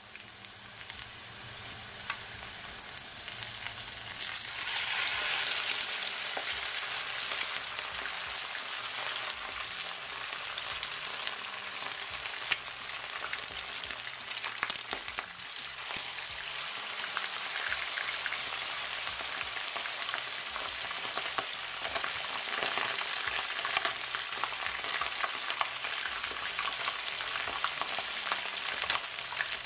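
Whole snapper deep-frying in hot vegetable oil: a steady sizzle with scattered crackling pops. The sizzle swells about four seconds in as fish goes into the oil.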